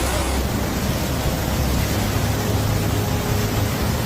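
Steady, loud rushing of water, an even hiss over a low rumble, typical of torrential floodwater or a downpour.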